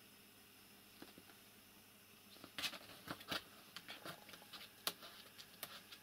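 A cat rolling on a rug, its claws and paws scratching and tapping against a cardboard box. It comes as a run of short, sharp scratches starting about two and a half seconds in, after a faint quiet start.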